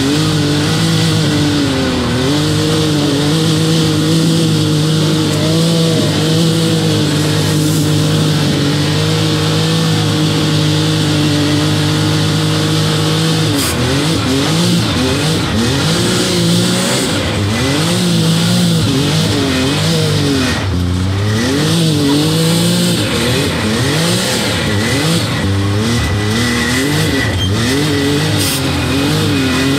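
2019 Can-Am Maverick X3 Turbo R's turbocharged three-cylinder engine running while the machine is driven. It holds a steady pitch for about the first half, then rises and falls again and again as the throttle is worked on and off.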